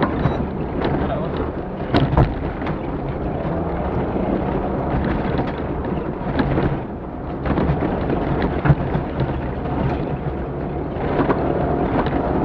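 Off-road rally vehicle driving over rough ground, heard from on board: a steady low rumble of engine and tyres, with sharp knocks and jolts about 2 seconds in and again near 9 seconds, and wind on the microphone. The rumble eases briefly about 7 seconds in.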